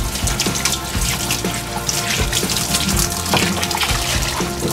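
Water running from a grooming shower hose onto a dog's wet coat in a stainless steel tub, a steady hiss of spray. Background music with a steady beat plays underneath.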